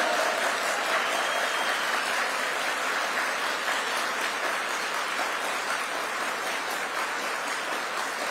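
Audience applauding in a large hall after a line in a speech, the clapping steady and slowly easing off toward the end.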